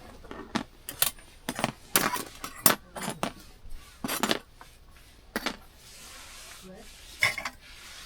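Metal utensils and dishes clinking and knocking in a quick, irregular series of sharp strikes that thins out after about five seconds, leaving a faint steady hiss and one last knock near the end.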